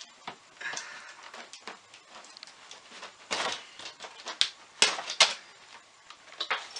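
Cardboard shipping box being opened by hand: flaps lifted and cardboard scraping and rustling, with a few sharper scrapes about three and five seconds in.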